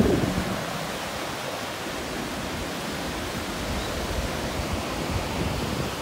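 Small Lake Michigan waves washing up onto a sandy shore: a steady rushing hiss of surf, louder at the very start and easing within the first half second.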